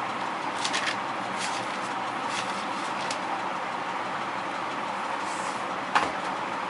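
A few scattered computer keyboard key presses as a password is typed, over a steady background noise, with a sharper, louder click about six seconds in.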